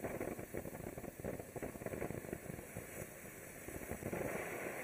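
Winda 'Silent Mode' ground fountain firework spraying sparks: a steady rushing hiss that dips a little and then swells again about four seconds in, as the fountain throws a bigger gold shower.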